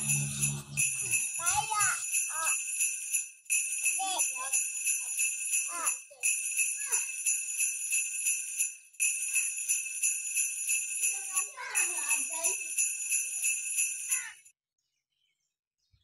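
Jingle bells shaking in a quick, steady rhythm, in runs of about three seconds with short breaks between them. The sound stops abruptly near the end.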